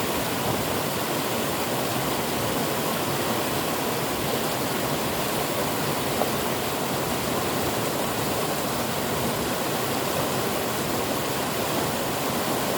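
River water flowing, a steady rush with no let-up.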